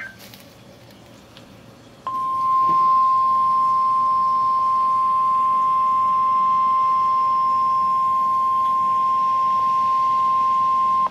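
NOAA Weather Radio warning alarm tone: one steady, unbroken high tone that starts sharply about two seconds in and holds for about nine seconds before cutting off. It is the attention signal that a weather warning broadcast is about to follow. Faint radio hiss comes before it.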